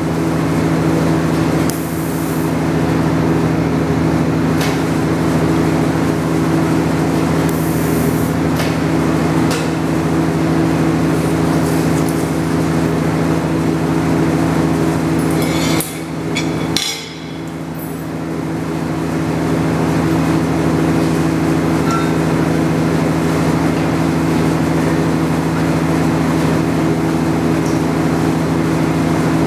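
TIG welding machine humming steadily, a low electrical drone made of several even tones. Short hisses come about two and eight seconds in, and a few metal clinks about halfway through, where the hum briefly dips.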